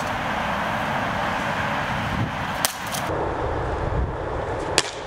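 Steady highway traffic noise, with two sharp knocks, one about halfway through and a louder one near the end: a brick dropped onto an iPod lying on another brick.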